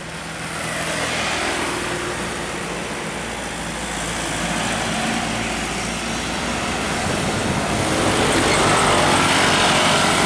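A large road vehicle, most likely a passing bus, running with a steady hiss of rain and wet tyres over its engine; it grows louder over the last few seconds.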